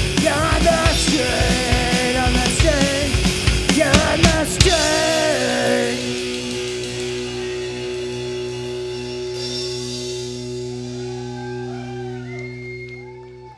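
Live punk rock band of electric guitar, bass and drum kit playing with shouted vocals, then hitting the song's final chord about five seconds in; the guitar and bass notes are left ringing and slowly fade out.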